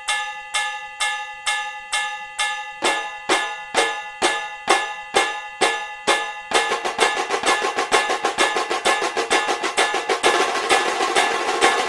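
Procession drumming: an even beat of about two strokes a second, each with a metallic ring. A deeper drum joins about three seconds in, and from about six and a half seconds the playing turns into a fast, dense roll.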